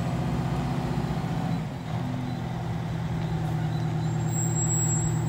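The Detroit diesel engine of a 1992 Pierce Arrow XT pumper fire truck running steadily. Its note dips briefly about two seconds in, then settles back to a steady run.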